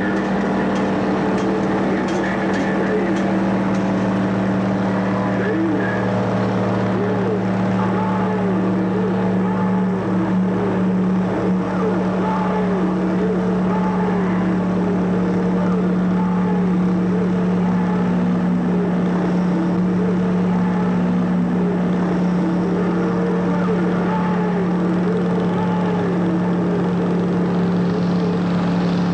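Performance machines running with a steady mechanical drone, overlaid from a few seconds in by a warbling sound that repeats about once a second.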